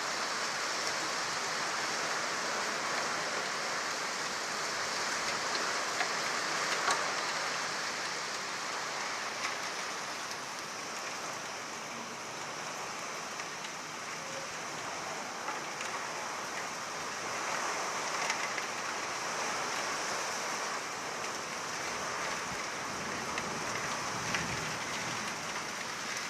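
Steady heavy rain falling, with scattered sharper drops striking close by.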